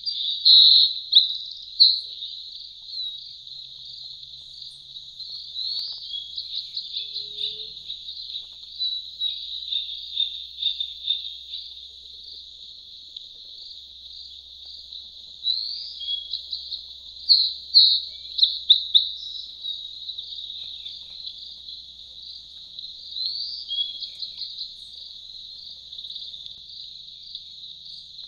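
Birds chirping and calling over a steady high trill, with short rising whistles and louder bursts of calls now and then.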